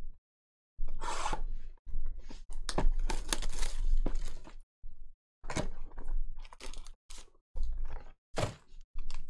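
Cardboard trading-card hobby box being torn open and its foil-wrapped packs pulled out. A long stretch of tearing and rustling with sharp clicks in the first half, then a string of short crinkles and scrapes.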